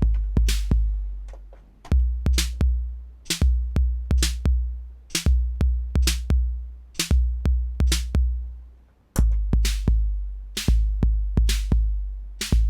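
TR-808-style analog drum machine playing a programmed beat: long low kick-drum booms that die away slowly, under sharp bright snare hits.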